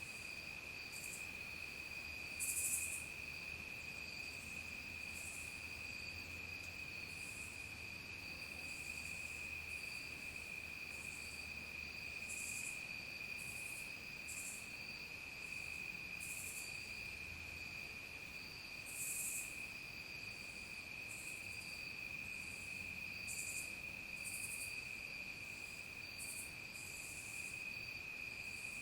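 Dusk insect chorus: crickets hold one steady, unbroken high-pitched trill. Short, even higher chirps from other insects come in irregularly over it, about one every second or two.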